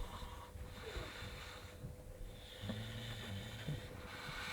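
Sleeping bulldogs snoring: noisy breaths, with a low buzzing snore lasting about a second, roughly two-thirds of the way in.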